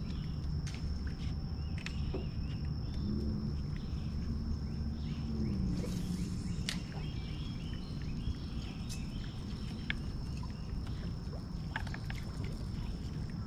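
Outdoor ambience: scattered short bird chirps over a steady thin high-pitched tone and a low hum, with a few faint clicks.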